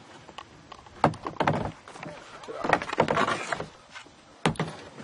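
A run of sharp knocks and rattles from a kayak, with paddle and gear bumping against the hull, a busier burst of clatter in the middle and a few single knocks near the end.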